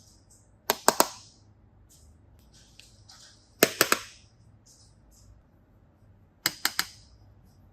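Sharp clicks in quick triplets, repeating about every three seconds, with faint rustling between them.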